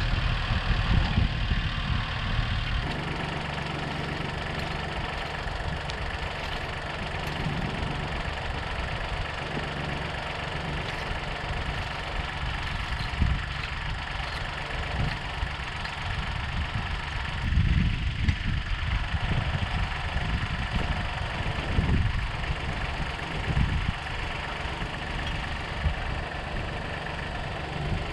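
International 234 compact tractor's diesel engine idling steadily, a little louder for the first few seconds. Irregular scraping of a steel rake dragged through loose soil comes and goes over the engine.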